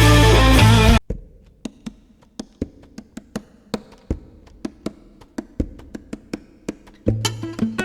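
Soundtrack music: an electric-guitar rock passage cuts off about a second in. It is followed by a run of sparse, sharp wood-block-like clicks, a few per second, and plucked guitar music comes back in near the end.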